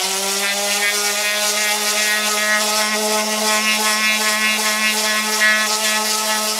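Electric orbital sander running steadily at a constant pitch as it scuffs a plexiglass windshield, etching the surface to give it tooth for epoxy.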